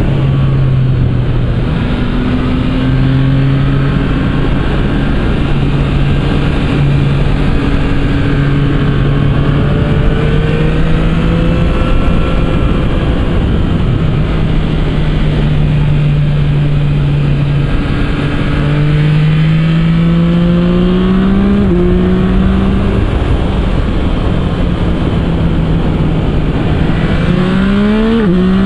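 Yamaha MT-09 SP's 890 cc inline three-cylinder engine with an Akrapovic exhaust, heard from the bike while riding. It holds mostly steady cruising revs, climbs and drops at an upshift about two-thirds of the way in, then revs up quickly through another upshift near the end.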